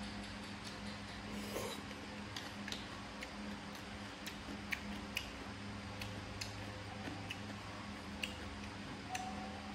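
Person eating papaya salad with grilled pork: scattered short, sharp clicks of chewing and mouth sounds, roughly one every half second to a second, over a steady low hum.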